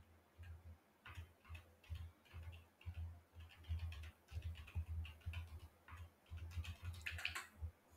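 Faint, irregular clicking of computer keyboard keys while a word is typed, starting about a second in.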